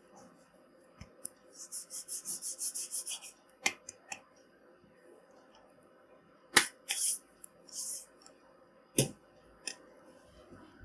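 Fingertips tapping and brushing a phone's touchscreen keyboard while typing. There is a quick run of about a dozen short scratchy ticks, then three sharp single taps spread through the rest and a few brief scratchy swishes.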